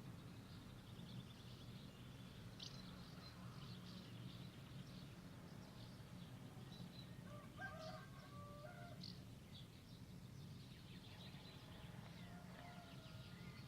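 Faint birdsong: small birds chirping throughout, with a lower, longer call about halfway through and again faintly near the end, over a steady low hum.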